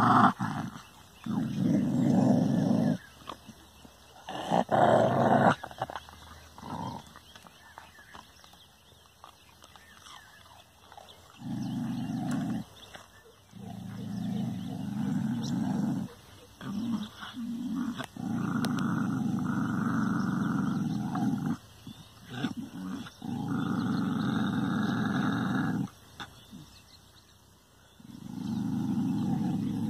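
A dog growling at its own reflection in a mirror: long, low growls again and again, each lasting one to three seconds, with short breaks between.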